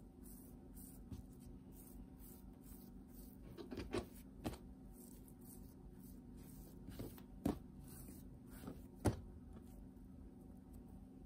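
Hands rolling a sheet of bread dough into a log on a plastic cutting board: a few light knocks and handling sounds, spaced out over several seconds, over a faint steady hum.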